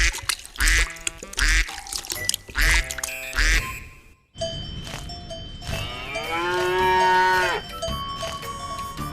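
Duck quacking over music with a steady beat, then, after a short break, a cow mooing once: one long call lasting about two seconds that drops in pitch at its end, over light music.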